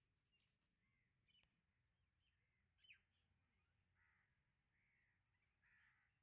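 Faint bird calls: a string of short calls, several a few seconds apart, over a low steady hum.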